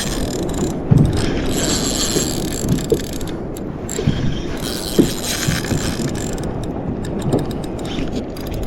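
Fishing reel being wound, a steady mechanical ratcheting whir of its gears, with a few dull knocks, one about a second in and one near the middle.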